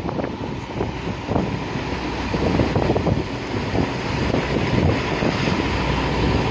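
Motorboat under way: the engine runs steadily while wind buffets the microphone, with water rushing along the hull.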